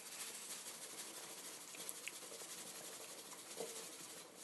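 A pot of coconut chicken curry simmering, giving a faint, steady fizzing and crackle of small bubbles.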